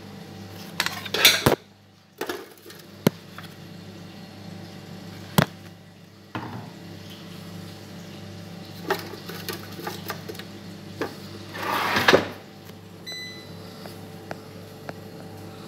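Metal clatter and knocks as breaded fried cauliflower is loaded into the wire basket of a Philips air fryer, over a low steady hum. About twelve seconds in the basket drawer scrapes shut, followed by a short beep from the fryer's control panel as the timer is set.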